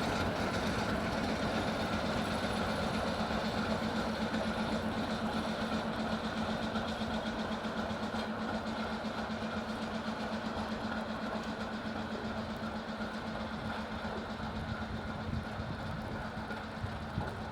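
Train's steel wheels running on the rails, a steady clattering rumble that slowly grows quieter.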